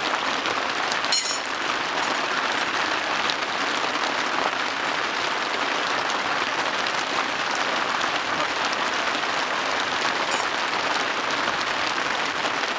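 A steady, even hiss like rain falling, with no breaks or changes in loudness, and a faint click about a second in.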